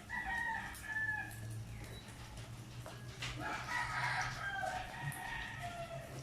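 A rooster crowing twice, the second crow longer than the first, over a steady low hum.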